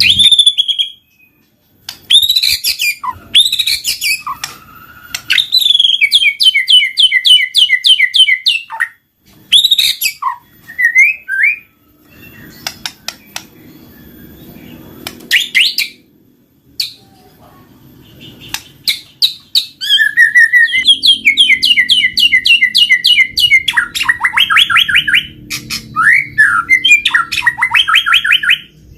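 White-rumped shama (murai batu) singing a loud, varied song of sweeping whistles and fast rattling trills in phrases separated by short pauses.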